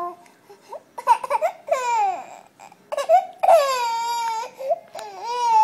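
Infant crying in a series of short, high-pitched wails, about five in all, the longest a second-long wail about three and a half seconds in.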